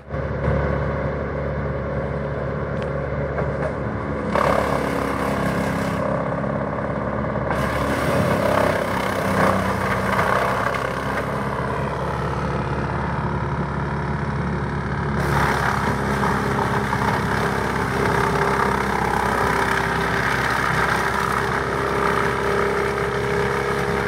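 A large trailer woodchipper of about 200 hp runs steadily under load as eucalyptus trunks and branches are fed through it. Over the engine comes a dense rushing, rattling noise of wood being chipped and blown out of the discharge chute.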